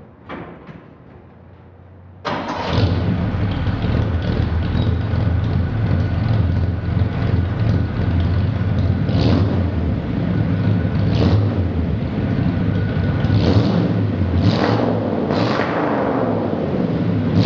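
A 1972 Chevy C-10's V8 fires on a cold start about two seconds in and runs loudly through new true dual exhaust with glasspack mufflers. In the later seconds come several short, sharp bursts, typical of quick blips of the throttle.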